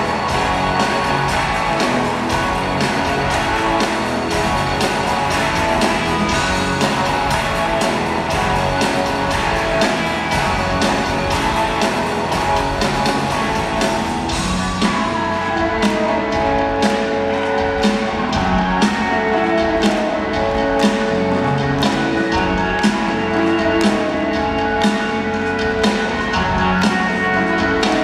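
Rock band playing live in a large hall: electric guitars, drum kit and keyboards in an instrumental passage. About halfway through, the drums settle into a steady beat of about two hits a second.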